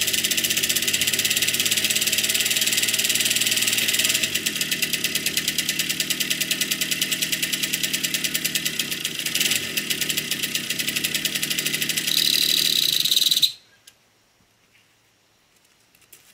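Jawa Stadion S22 moped's small two-stroke single-cylinder engine running on its stand with a fast pulsing beat, revved up briefly near the end, then shut off abruptly. The freshly restored engine is being run and tuned after its first start.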